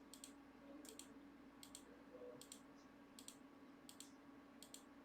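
Computer mouse clicked over and over at a steady pace, about one click every three-quarters of a second, each a faint crisp double snap of the button going down and coming back up, with a low steady hum underneath. The repeated clicks are the list randomizer being run again and again for the dice roll of 12.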